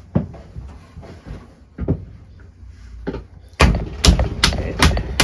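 Hands slapping and patting a lump of potter's clay: a few separate thumps, then from about three and a half seconds in a fast run of thumps, two to three a second.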